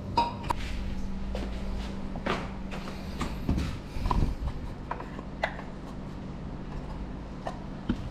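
Scattered light clicks and knocks from objects being handled, over a low steady hum that fades about five seconds in.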